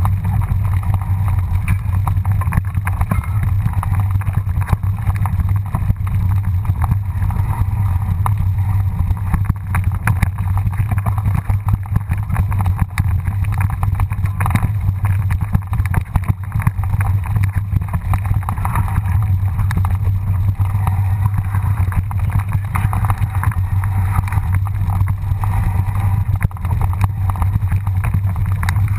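Mountain bike riding down a bumpy dirt trail, heard from a camera on the bike: a constant low rumble of wind and vibration on the microphone, with continual rattles and knocks as the bike jolts over the ground.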